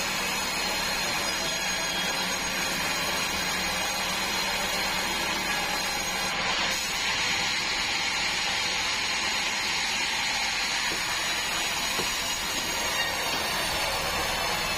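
Band sawmill running, a steady machine noise with a slight change in its sound about six and a half seconds in.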